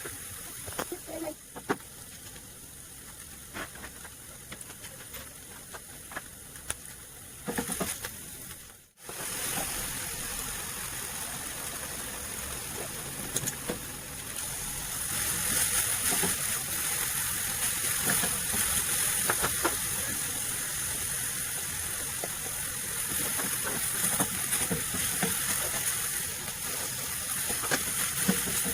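Food sizzling in a frying pan, with scattered clicks of a utensil stirring it. The sound cuts out briefly about nine seconds in and comes back, and the sizzle is louder from about halfway through.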